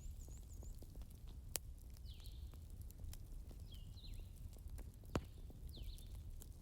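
Wood fire burning with a low steady rumble and two sharp crackling pops. Over it, a bird repeats a short falling call about every two seconds.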